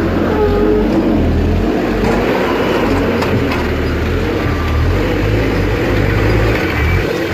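Saab B207L 2.0-litre turbocharged four-cylinder petrol engine running steadily.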